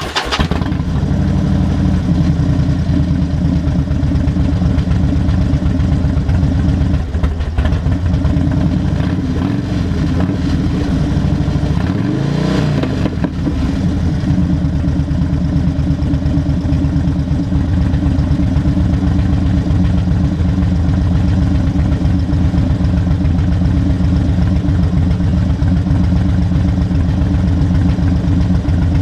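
Harley-Davidson Fat Bob's V-twin running through Vance & Hines Big Shots Staggered pipes fitted with Quiet Baffle inserts. It is blipped twice, the second a short rev up and back down about twelve seconds in, then settles into a steady, pulsing idle.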